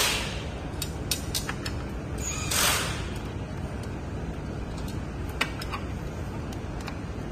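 Scattered sharp clicks and two short hissing scrapes, the second the loudest, from hands and tools working on a scooter's parts, over a steady low background rumble.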